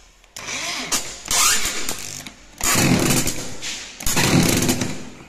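Electric drill driving screws through an MDF jali panel into a wooden frame. The motor runs in three bursts, each lasting one to two seconds.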